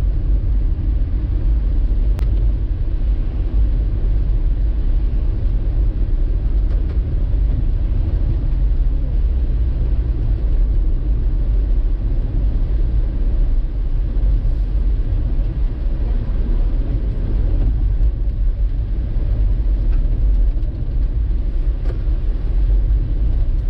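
Hailstorm: a steady, loud rumble, mostly deep, with no separate hits standing out.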